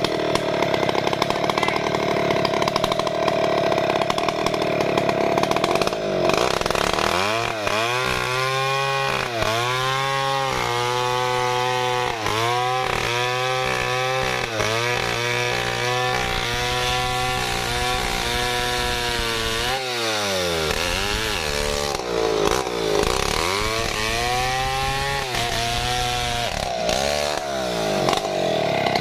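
Stihl MS070 two-stroke chainsaw running at high revs for about six seconds, then dropping to a lower speed with a wavering pitch. Near the end it is revved up and down several times before running high again.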